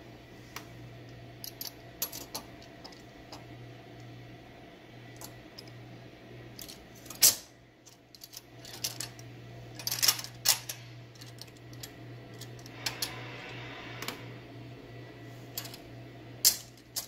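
Irregular clicks and clacks of a handled O scale model train car: its plastic trucks and wheels knocking against one another, the wooden body and the track rails, with a sharper knock about 7 s in and a cluster around 10 s. A steady low hum runs underneath.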